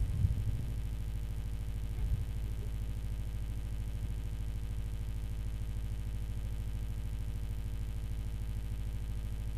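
Steady low hum with an even stack of buzzing overtones, the kind a sound system gives through an open microphone. Two soft knocks come near the start and about two seconds in.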